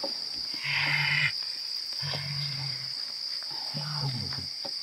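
A man's low, wordless vocal sounds, three of them in a row, each under a second long: the noises of a man in a possession trance. A steady high chirring of crickets runs underneath.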